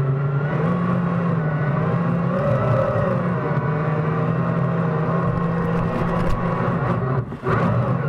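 Battery-electric jet drive of a DIY jet kayak running under power, a steady whine that wavers slightly in pitch, mixed with the rush and splash of the bow wave. The power drops away for a moment about seven seconds in, then comes back.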